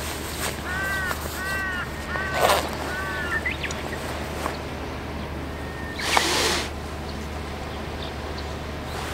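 A bird cawing outdoors: a quick series of four short, arched caws in the first three seconds. A brief rush of noise follows about six seconds in.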